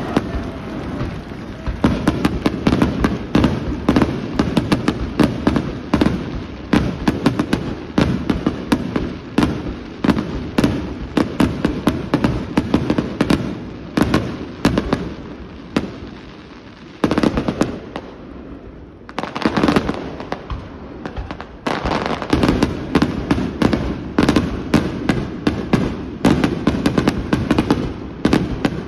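Aerial firework shells bursting one after another: a dense barrage of sharp bangs in quick succession. It thins out for a few seconds past the middle, then picks up again.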